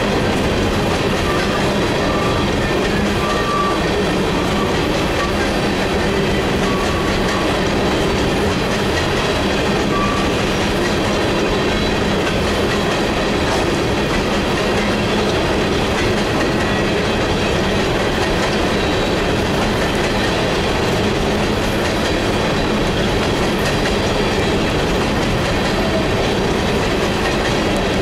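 Coal train's loaded or empty open-top hopper cars rolling past close by: a steady, even rumble of steel wheels on rail, with the wheels clacking over the rail joints.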